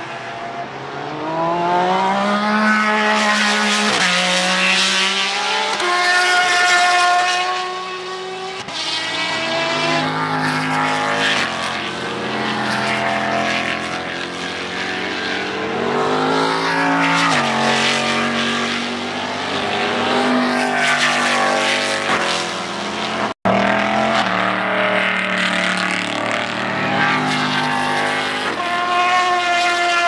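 Grand-Am sports-racing cars passing one after another at full throttle. Their engines climb in pitch and drop back at each upshift.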